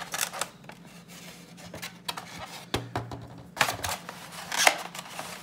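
Eggs being taken from a plastic egg carton, with a series of separate clicks and knocks as the carton and eggs are handled; the sharpest knock comes a little before the end.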